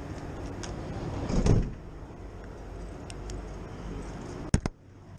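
A vehicle door being handled: a loud dull thump about a second and a half in, then two sharp clicks near the end as it shuts, after which the background goes quieter.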